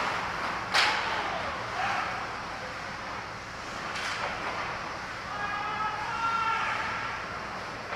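Ice hockey game sounds in a rink: a steady wash of rink and crowd noise, broken by two sharp cracks of play about a second in and about four seconds in. Shouting voices are heard in the second half.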